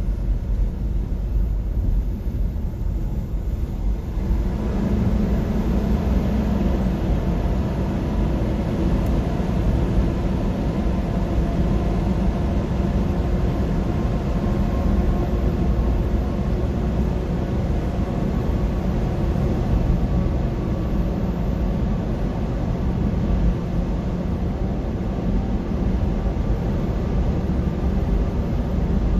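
Steady road and tyre noise inside the cabin of a Nissan Leaf electric car at highway speed, with no engine note. About four seconds in the noise grows louder and fuller as the car enters a highway tunnel, and it stays that way.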